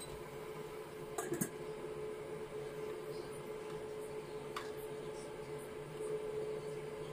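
A spatula scooping and scraping fried rice from a wok into a small bowl, with two sharp clinks a little over a second in and another midway, over a steady hum.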